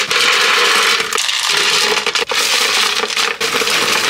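Granola and chocolate chips poured into a container, a loud, steady dry rattle and rustle.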